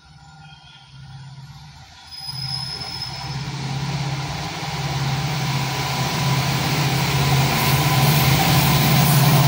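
WDP4D diesel locomotive's 16-cylinder two-stroke EMD engine running under power as the train approaches, growing steadily louder, with the rising rumble of the train on the rails beneath it.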